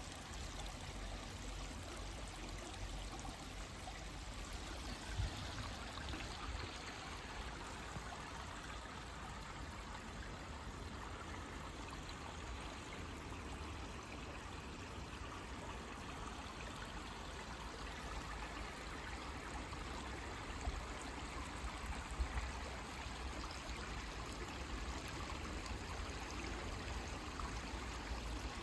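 Small forest stream running steadily over rocks, a continuous trickling and splashing, with a low rumble underneath and a couple of brief bumps.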